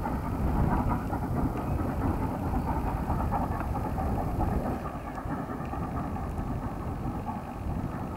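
Distant steam train running through the valley, heard as a steady low rumble that eases slightly about five seconds in as it passes out of sight.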